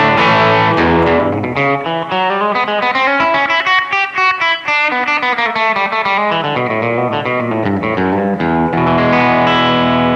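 Les Paul Custom electric guitar played through an amplifier with a mostly clean tone: chords at first, then a quick run of single notes in the middle, then ringing chords near the end.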